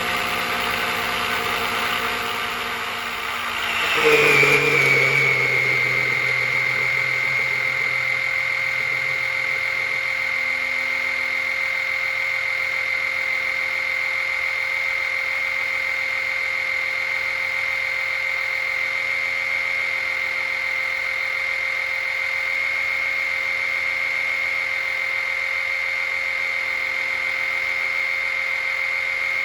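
Small electric oil extraction pump running steadily, sucking transmission oil out through a thin tube down the filler hole. About four seconds in, the whine briefly swells and drops in pitch, then settles into an even, slightly lower hum.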